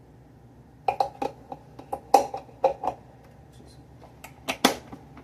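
Hard plastic clicks and knocks of a single-serve coffee maker's parts being handled, such as the pod holder or drip tray being moved: about a dozen short, sharp clicks starting about a second in, irregularly spaced, the loudest near the middle and near the end.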